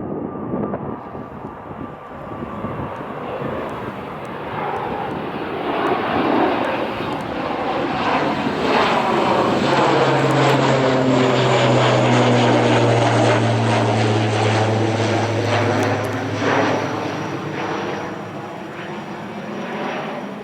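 A fixed-wing aircraft passes close by on take-off or landing. Its engine noise swells to a peak about halfway through, with a steady low drone underneath, then fades away near the end.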